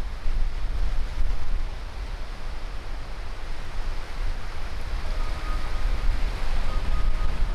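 Small sea waves breaking and washing up a sandy beach, a steady surf wash over a low rumble. About five seconds in, faint sustained music notes come in over it.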